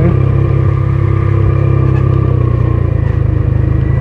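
CPI Tyke 100 motorcycle's engine running steadily while riding, recorded from the bike itself.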